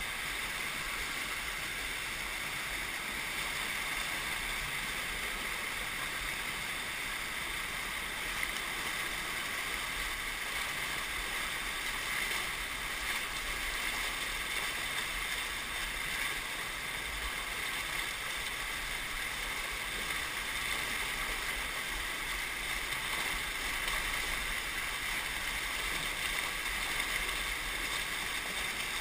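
White-water rapids rushing and churning around boulders in a rocky riverbed, a steady rush of water heard close up.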